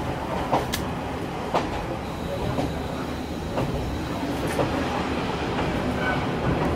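Cabin sound of a KiHa 40 diesel railcar under way: a steady low rumble of engine and wheels on the rails, with sharp rail-joint clicks about once a second.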